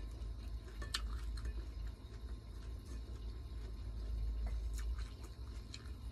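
Someone eating, with soft chewing and a few sharp clicks and crunches, about a second in and again around five seconds in, over a steady low rumble.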